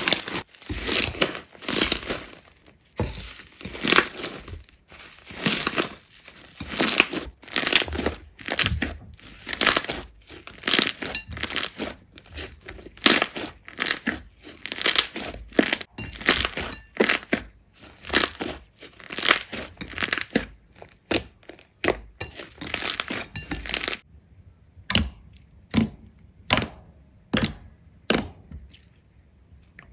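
Slime being squeezed and pressed by hand: a run of crackling, crunchy squishes, about two a second. About two-thirds of the way through it changes to sharper, separate clicks and pops with quiet between them.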